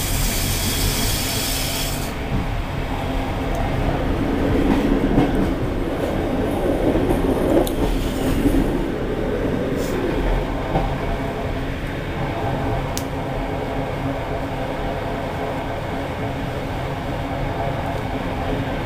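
Passenger train rolling slowly into a station, heard from inside the coach: steady wheel-on-rail rumble over the station tracks. A louder hiss from a passing coach on the next track cuts off about two seconds in.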